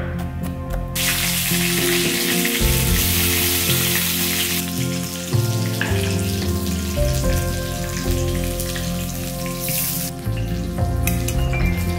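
Chicken pieces sizzling in hot oil in a wok, a dense steady hiss that dies down about ten seconds in. At the very start there are a few knife chops on a wooden cutting board, and background music runs throughout.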